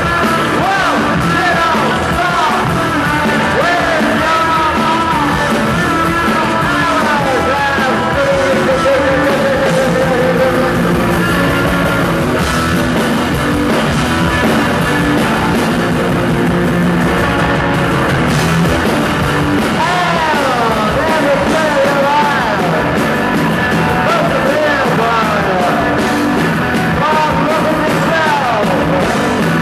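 Loud live post-punk rock band playing: electric guitar, bass guitar, drums and a Korg keyboard, with vocals over the top.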